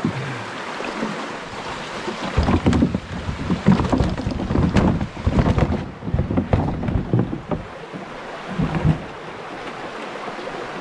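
Shallow river water rushing over rocks, with dull knocks and scrapes of the canoe's plastic hull against the rocks as the paddler climbs out and holds it by the bow line, in a run from about two to five seconds in and again near the end.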